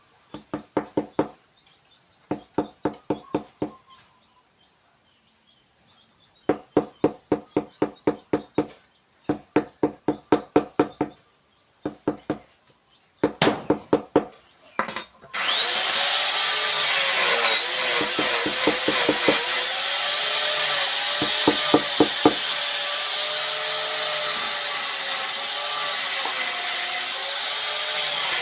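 Quick bursts of sharp, ringing knocks, five to eight at a time with short pauses between them, typical of a mallet driving a carving chisel into wood. About fifteen seconds in, a power tool starts and runs loudly with a high whine that wavers in pitch, with a few more knocks under it.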